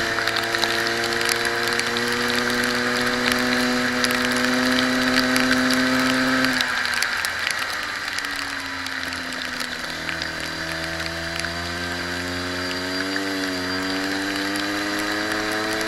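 Racing kart's water-cooled two-stroke engine under power, its pitch climbing steadily down a straight, then dropping sharply about six and a half seconds in as the throttle is lifted for a corner. It climbs again through the corner exit, with a brief wobble in pitch near the end.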